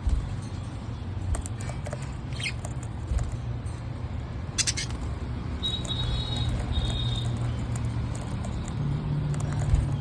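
Small parrots in a cage giving a few short, high chirps over a steady low hum, with two brief flat whistled notes in the middle.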